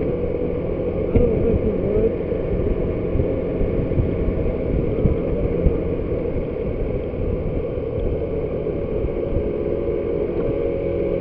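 Motor scooter riding at road speed: a steady low engine drone mixed with wind noise on the microphone and road rumble.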